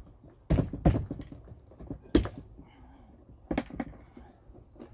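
Hard plastic knocks and clacks from a 36-volt Black & Decker lawnmower battery pack's case being handled and fitted back together, about five irregular knocks.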